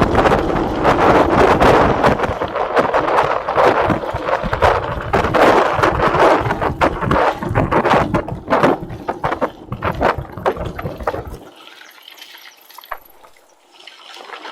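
Mountain bike rolling fast down a rough dirt trail: tyres crunching over loose ground with frequent knocks and rattles, and wind buffeting the microphone. About eleven seconds in, the wind rumble stops and the sound turns much quieter.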